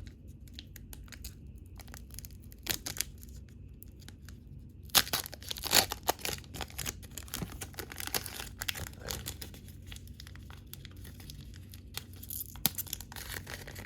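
A baseball card pack wrapper being torn open and crinkled by hand, in scattered crackles with a louder stretch of tearing and rustling about five seconds in.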